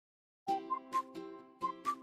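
Background music with a light percussive beat and bright notes, starting about half a second in.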